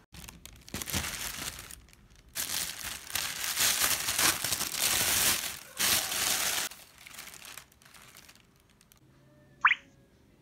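Thin plastic shopping bag crinkling and rustling in bursts as hands rummage through the groceries inside it. Near the end a short rising tone blips once.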